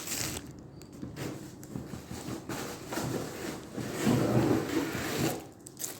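Rustling, crinkling and light knocks of cosmetics packaging being handled and unpacked from a delivery box.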